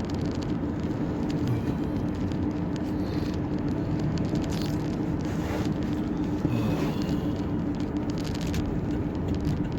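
Loaded truck driving: steady engine and road noise with a constant low hum.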